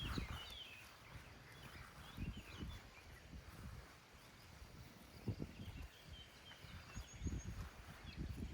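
Quiet farmyard ambience: small birds chirping on and off, with a few soft low thuds and rustles.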